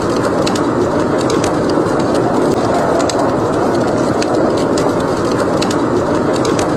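Wood fire crackling with irregular sharp snaps over the steady noise of a howling blizzard wind.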